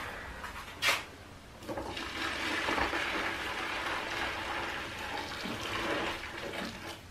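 A sharp click, then water rushing steadily for about five seconds before it stops.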